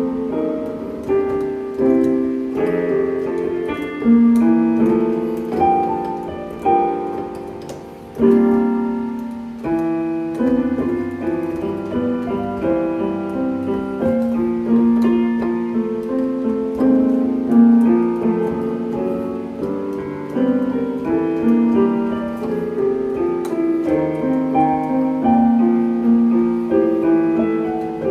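Electronic keyboard with a piano voice playing a song accompaniment: chords and melody notes struck and left to ring, in phrases.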